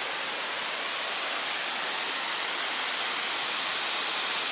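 The Kravica waterfalls: a steady rush of falling water that grows slightly louder over the few seconds.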